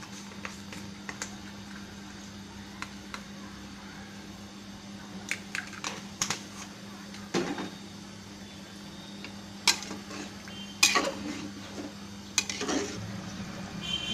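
Metal utensils clinking and knocking against cooking pots: a handful of sharp strikes between about five and thirteen seconds in, the loudest around ten and eleven seconds. A steady low hum runs underneath.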